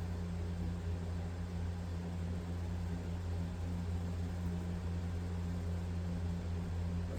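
Steady low hum with an even background hiss; no other sound stands out.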